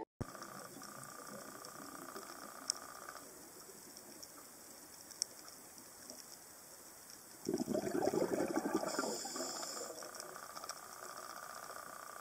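Scuba diver's regulator breathing heard underwater: a bubbling rush of exhaled bubbles starting about seven and a half seconds in and lasting a couple of seconds, between softer, steady hissing breaths in. Two sharp clicks come in the first half.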